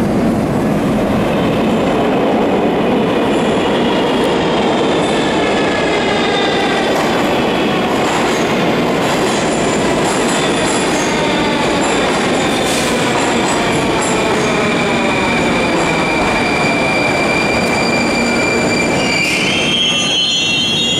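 Moscow Metro train pulling into the station: a loud, steady rumble of wheels on rail, with a motor whine that falls slowly in pitch as it slows, and a brief squeal as it comes to a stop near the end.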